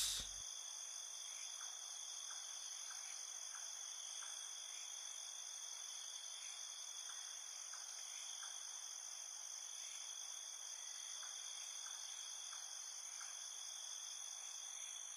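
Steady chirring of crickets and other night insects, several high trills layered together without a break, with faint short ticks now and then.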